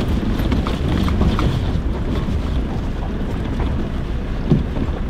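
Stock Toyota Hilux pickup crawling up a rocky track, heard from inside the cab: a steady low rumble of engine and tyres over stones, with scattered small knocks and a sharper knock about four and a half seconds in.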